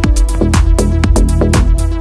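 Electronic dance music with a steady, driving beat and a deep bass line.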